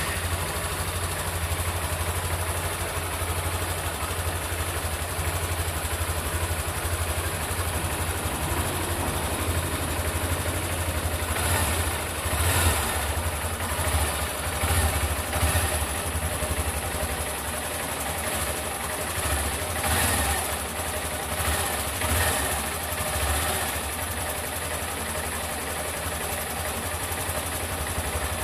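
Honda Bros 160 single-cylinder engine idling just after starting, running with the abnormal engine noise that appeared at 1,000 km. The sound swells briefly several times through the middle stretch.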